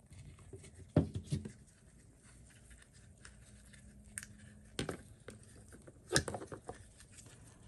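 Handling of a plastic air-filter cover and foam air filter on a small two-stroke engine: a few sharp plastic clicks and knocks, the loudest about a second in and about six seconds in, with rustling as the foam filter is pressed into place.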